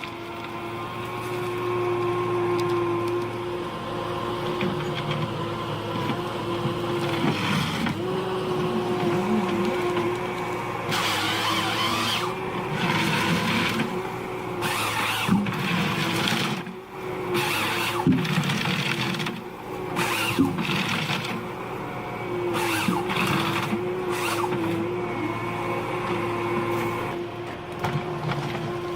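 Ponsse Ergo 8W forestry harvester at work: its engine and hydraulics run with a steady whine. From about ten seconds in this is broken by repeated short bursts of harsher noise from the harvesting head working the spruce.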